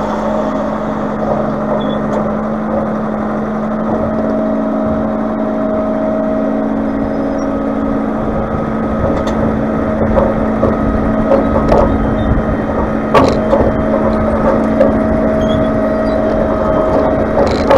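Tractor engine running steadily while a dump trailer tips out the last of a load of dirt. About halfway through, the empty steel trailer bed starts to bang and rattle as it is pulled over rough ground.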